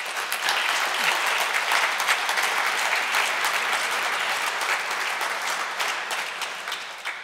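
Audience applauding, a dense patter of many hands clapping that starts at once and dies away near the end.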